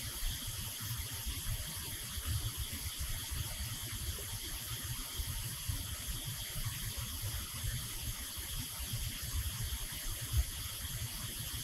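Steady shop background noise: an uneven low rumble under a constant hiss, with no distinct clicks or strikes.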